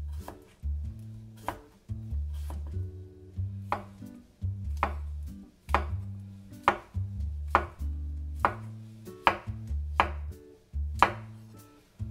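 Chef's knife slicing cucumber and then button mushrooms, each cut ending in a sharp knock of the blade on the cutting board, about one a second. Soft background music with low bass notes plays underneath.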